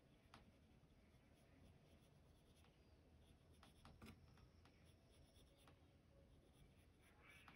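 Faint scratching of a Prismacolor coloured pencil shading on paper, with a few light ticks, the clearest about four seconds in.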